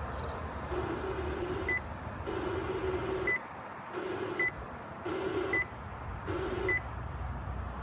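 Short, high electronic beeps repeating roughly once a second, with a lower steady tone switching on and off between them.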